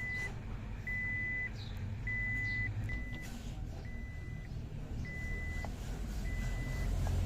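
A high electronic warning beep, about half a second long, repeating roughly once every 1.2 seconds in an even pattern like a reversing alarm, over a steady low rumble.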